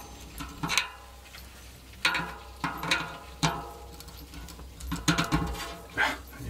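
Metal bicycle hub and cassette parts clinking and knocking as they are handled: irregular sharp clicks, several with a short metallic ring.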